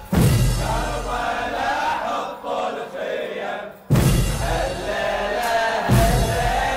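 Men chanting a zanjeel latmiya, a Muharram mourning chant, in chorus. The sung phrases restart with a loud, full entry at the start, about four seconds in and again about six seconds in.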